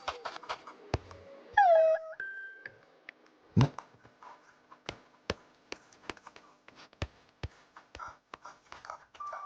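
Children's TV soundtrack: soft background music under scattered clicks and taps, a short pitched sound falling in pitch about two seconds in, and a dull thud a little later.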